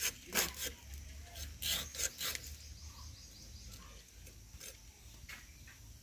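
A blade cutting through pabda fish: about six short cutting strokes in the first two and a half seconds, then quieter, with two fainter strokes near the end.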